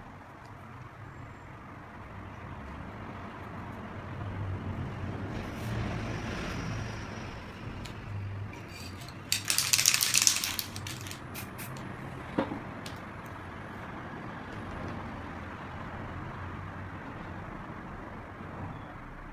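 An aerosol spray-paint can hisses in one strong burst of about a second and a half near the middle, over a steady low background rumble. A single sharp click follows a couple of seconds later.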